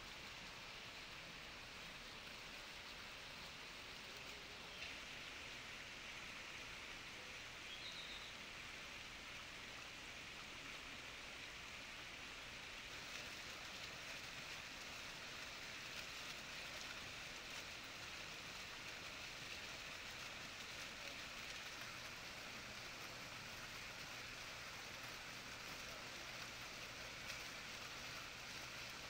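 Faint, steady splashing of running water.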